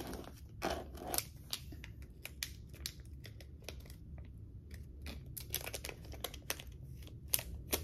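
Small packaging crinkling and ticking as it is handled: a sparse string of short, sharp crackles.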